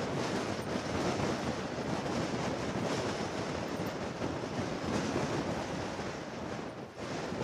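Wind blowing across the microphone on an exposed mountain ridge, a steady rushing noise that eases briefly near the end.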